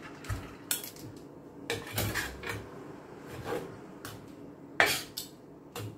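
Metal tongs and a spatula clinking and scraping against a stainless steel pan and mixing bowl as noodles are lifted across. There are half a dozen sharp clinks, the loudest about five seconds in.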